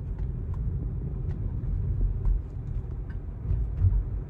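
Low road and tyre rumble heard inside the cabin of a Tesla Model 3 electric car while driving, swelling briefly near the end, with a few faint ticks.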